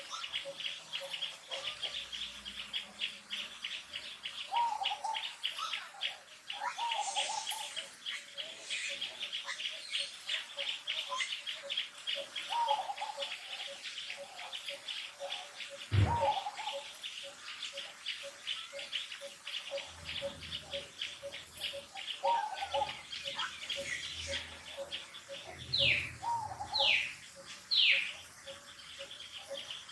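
Birds and insects in the trees: a fast, steady trill with a lower pulsing hum, short chirping calls every few seconds, and a sharp knock about halfway through. Near the end come three loud calls, each sliding down in pitch.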